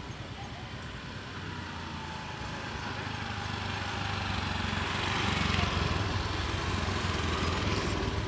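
A motor vehicle engine running close by, a steady low drone that grows louder about halfway through and then eases slightly.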